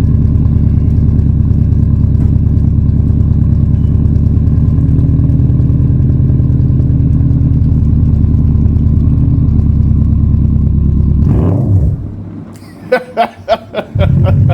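Car engine idling steadily close by; about twelve seconds in it drops away abruptly, followed by a few sharp clicks or knocks before the engine sound returns.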